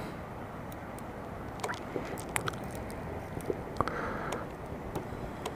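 Quiet steady background noise with a scattered series of faint, irregular clicks.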